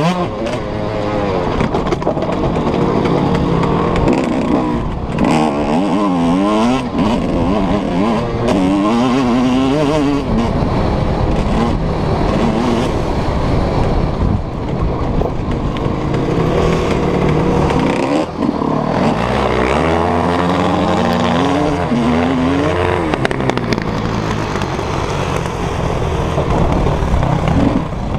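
Suzuki RM125 motocross bike's two-stroke single-cylinder engine ridden hard on a dirt track, its pitch repeatedly climbing and dropping as the rider accelerates, shifts and backs off for corners.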